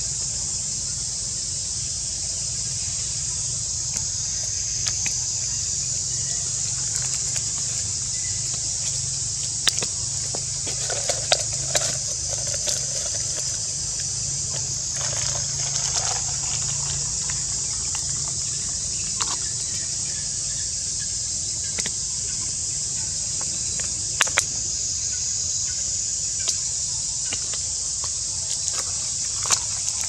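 A steady, high-pitched drone of insects, with a low steady hum underneath and a few sharp clicks scattered through.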